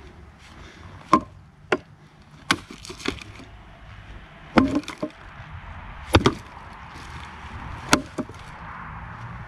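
Condor Viking machete chopping into wood: a series of about eight sharp chops at irregular intervals.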